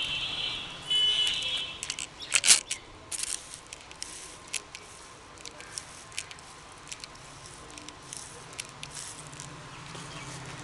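Hand trigger spray bottle squirting water onto leafy plants: short spray hisses, the loudest about two and a half seconds in, with small clicks and patters scattered through.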